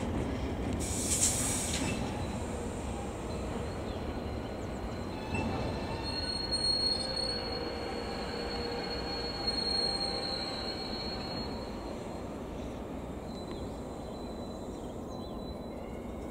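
Train rolling through a railway station, with a steady rumble of wheels on rail. There is a brief high hiss about a second in, and a thin, steady high wheel squeal from about six to eleven seconds in.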